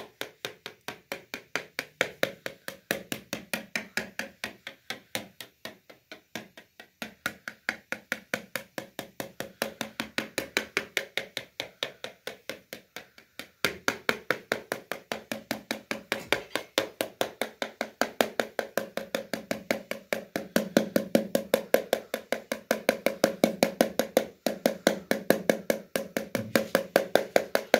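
Knife tip rapidly tapping through pizza dough onto a metal pizza tray as the dough is docked with holes, about four or five taps a second and louder in the second half.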